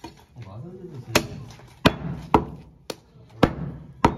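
Heavy butcher's cleaver chopping goat meat on a wooden chopping block: six sharp strikes, about one every half second, starting about a second in.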